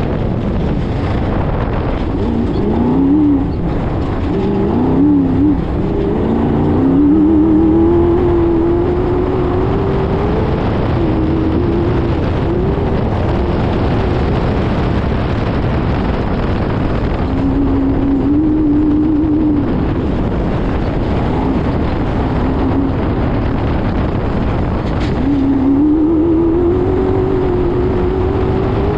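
Off-road race car's engine revving hard and pulling through the gears, its pitch climbing several times as the car accelerates, over a constant rush of wind and driving noise picked up by a bonnet-mounted camera.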